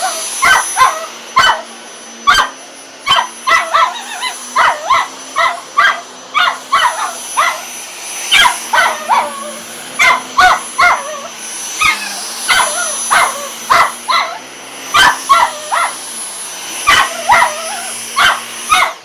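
A dog barking over and over, in quick clusters of short barks, at a running vacuum cleaner whose steady hum carries on underneath.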